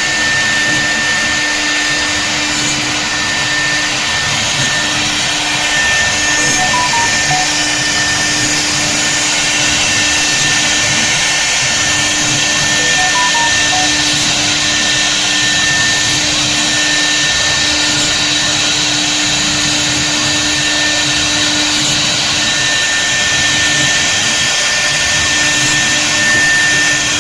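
CNC router running steadily as it cuts wood: a constant high whine from the spindle over a loud, even rushing noise.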